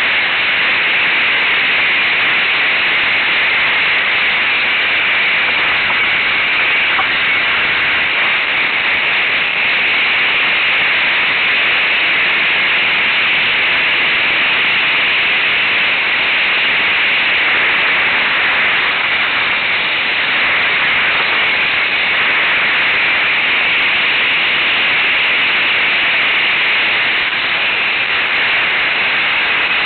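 Steady, loud rushing hiss of wind on the microphone of a camera riding on a moving ATV, with no engine note standing out.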